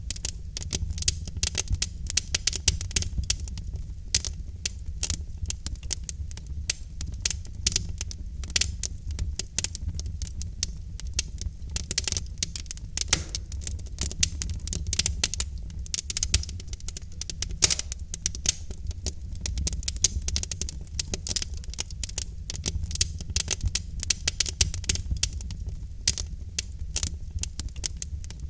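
Wood fire of burning logs crackling: a dense, irregular run of small pops and snaps over a steady low rumble of the flames.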